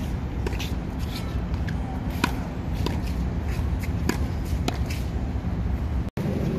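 Tennis rally on a hard court: sharp pops of racquets striking the ball and the ball bouncing on the court, coming at irregular intervals over a steady low background hum.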